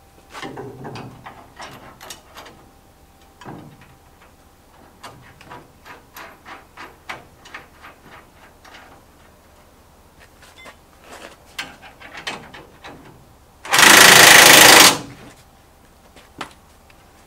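Galvanised steel Fast Form formwork brackets, a bolt and a washer clinking and knocking as a small kicker bracket is fitted by hand onto a taller bracket. A little before the end comes the loudest sound, a burst of about a second from a cordless impact driver tightening the bolt.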